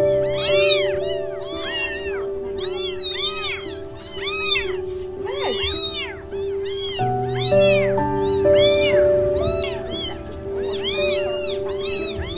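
A litter of young kittens meowing over and over, their high cries overlapping so that several come each second, over background music with held notes.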